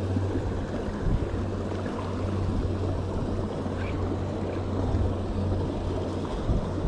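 Water pouring over a dam spillway: a steady rush with a constant low rumble underneath.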